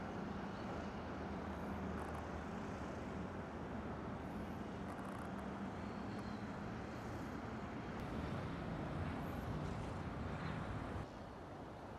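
Steady low rumble of distant vehicle traffic with a low hum, dropping abruptly in level near the end.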